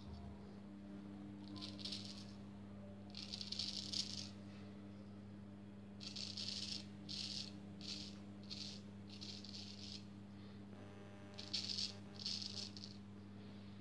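Freshly honed straight razor scraping through lathered stubble in about a dozen short, scratchy strokes, some in quick runs, over a steady low hum.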